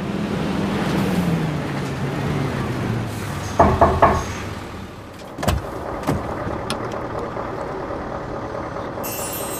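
Vehicle sounds from a truck cab: an engine note falls in pitch over the first three seconds. A short clatter of knocks comes about three and a half seconds in, then a single heavy thump about five and a half seconds in over a steady hum.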